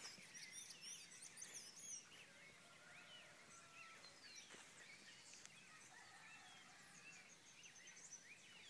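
Faint dawn chorus: many birds singing at once, overlapping quick chirps and whistles, busiest in the first couple of seconds and thinning to scattered calls after.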